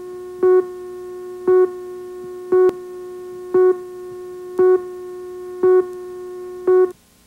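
Countdown tone on a broadcast tape's opening slate: a steady electronic tone with a louder beep once a second, seven beeps in all, then the tone cuts off suddenly.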